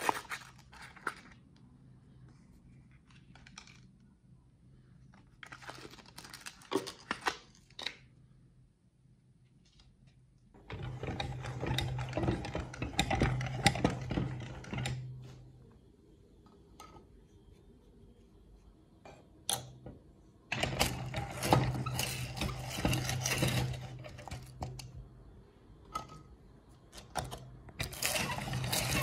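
Foil candy wrappers crinkling and rustling in bursts, then a meat grinder running twice for about five seconds each, starting suddenly about eleven seconds in and again about twenty seconds in, with a steady motor hum under a loud rattle.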